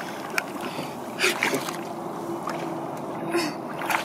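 A child climbing up inside a plastic tube slide from the pool: a few short knocks and splashes as wet hands and knees meet the plastic, over a steady wash of water noise.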